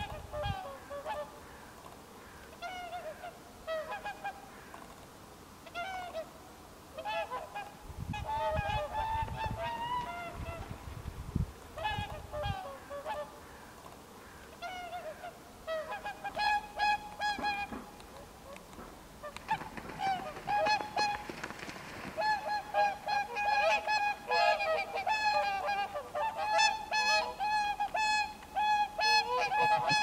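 Whooper swans calling: repeated honking, bugling calls, scattered at first and then crowding into a dense, overlapping chorus from about halfway through.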